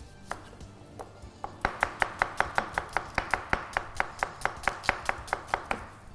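Knife chopping on a cutting board in quick, even strokes, about five a second. The chopping starts about a second and a half in and stops shortly before the end, over faint background music.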